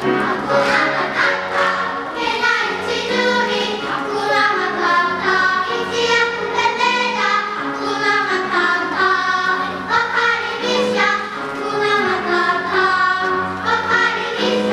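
Children's choir singing in chorus with instrumental accompaniment, held sung notes over a steady low bass line.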